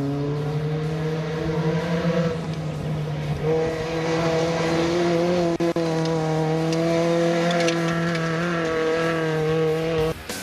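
Cross-country rally car's engine running hard on a dirt stage. Its note climbs slightly over the first two seconds, breaks off briefly, then holds steady until it cuts off abruptly near the end.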